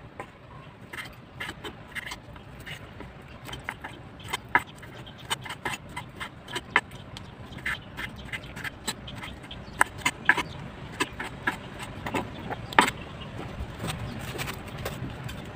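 Kitchen knife chopping Chinese sausage on a wooden chopping board: a quick, irregular run of sharp knocks, several a second. Near the end the blade cuts into a head of cabbage.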